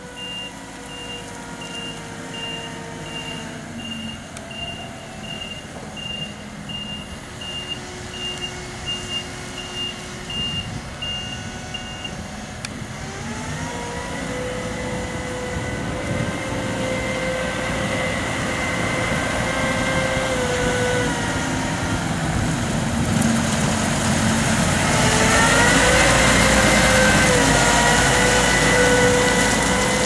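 Manitou MRT2145 rotating telehandler's reversing alarm beeping steadily, about one and a half beeps a second, over its diesel engine running. About twelve seconds in the beeping stops and the engine revs up twice, getting louder near the end.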